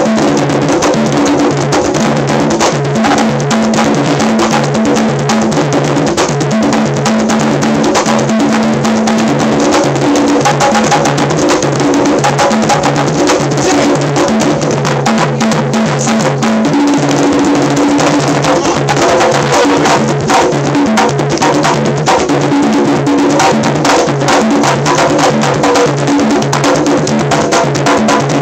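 Several congas played by hand together in a continuous rhythm, dense hand strikes over the drums' ringing low tones.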